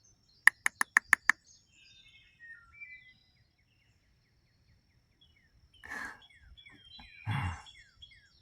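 Songbirds chirping in short, repeated downward notes, with a quick run of six sharp clicks about a second in and two brief rustling bursts near the end.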